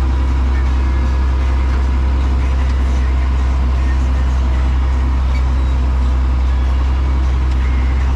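Tractor engine running steadily at a constant speed, a loud, even low drone.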